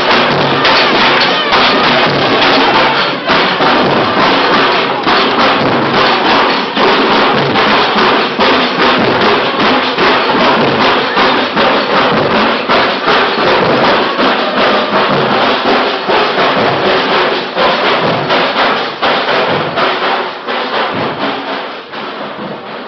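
Street procession band playing loudly: fast, driving drumming with trumpets. It grows quieter over the last few seconds.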